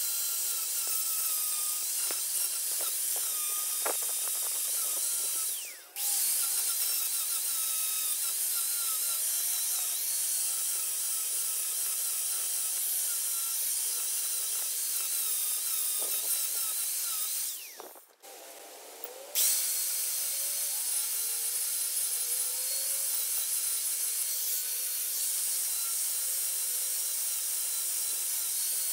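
Corded angle grinder grinding back fresh welds on a steel car sill in a rust repair: a steady high-pitched grinding whine. It breaks off briefly about six seconds in, and again for about two seconds just past halfway before starting again.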